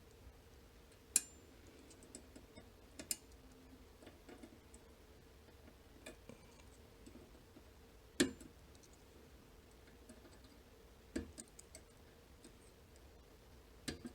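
Faint, scattered clicks of a tubular lock pick working the pins of a tiny tubular lock, about five clicks spread several seconds apart as pins are pushed down and set.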